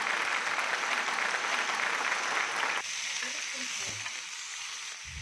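Bacon-wrapped beef tenderloin steaks sizzling in a cast-iron skillet, a dense crackling fry that drops suddenly to a much fainter sizzle about three seconds in.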